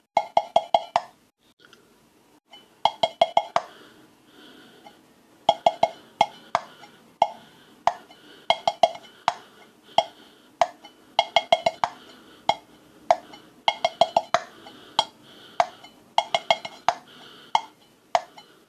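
Fingers drumming a rhythm on the lid of an empty tin olive can, each tap a short ringing metallic plink. Quick flurries of taps alternate with single strokes in a steady, repeating groove.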